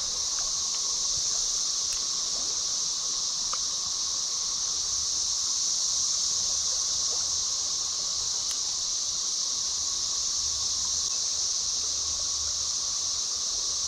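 Steady drone of a cicada chorus, a high continuous buzz with a lower steady hum beneath it, over the flowing water of a creek.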